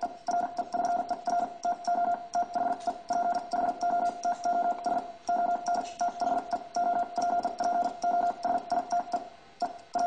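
Morse code sent on a hand-operated telegraph key, heard as a steady mid-pitched beep switched on and off in short dots and longer dashes, with faint clicks at each keying and a brief pause between groups.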